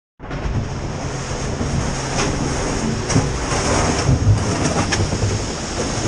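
Steady roar of a tall whitewater waterfall close by, with a deep rumble on the helmet camera's microphone and a few sharp knocks.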